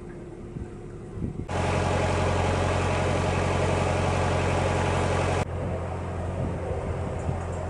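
Narrowboat's diesel engine running steadily at cruising speed with a low, even chug. For about four seconds in the middle it is much louder and closer, starting and stopping abruptly, then it drops back to a quieter steady run.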